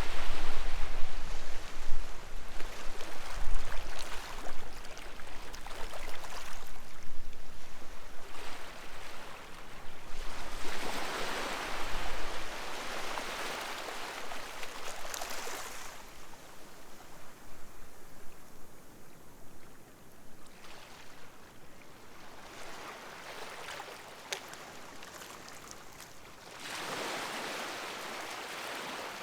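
Sea waves breaking and washing up the shore in surges several seconds apart, the later ones fainter.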